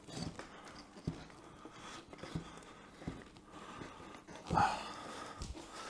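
A man breathing heavily with effort while he shifts motorcycle parts, with a few light knocks of parts being handled and one louder sound about four and a half seconds in.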